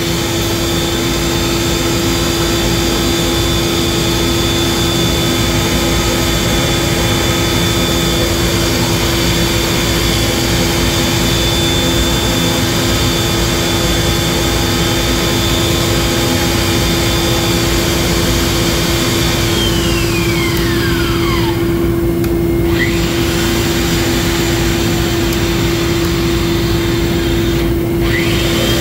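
Ridgid 500 power pipe-threading machine running steadily as its die head cuts threads on a pipe, a constant machine hum with a high tone that slides down about two-thirds of the way through.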